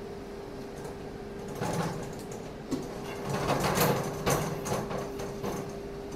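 Chrome steel tubes of a Pilates Cadillac trapeze frame sliding and scraping in the black end frame's fittings as they are pulled out. The metal scrapes and rattles in two spells, about a second and a half in and again from about three to four and a half seconds in, with a couple of sharp knocks, over a faint steady hum.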